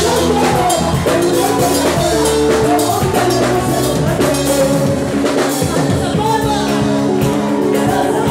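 Live band playing: a woman singing into a microphone over a drum kit and electric guitar, amplified through the stage speakers.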